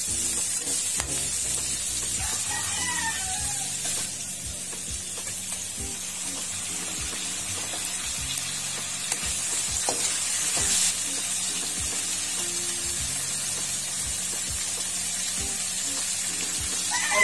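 Pork and vegetables sizzling in a hot wok, with a metal spatula scraping and clicking against the pan as they are stirred. A rooster crows briefly about three seconds in and again near the end.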